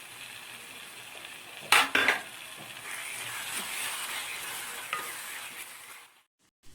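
Onion-tomato masala with curry leaves and green chillies sizzling in hot coconut oil in a pan while it is stirred. About two seconds in, the stirring spoon knocks twice against the pan. Afterwards the sizzle grows louder, then the sound drops out briefly near the end.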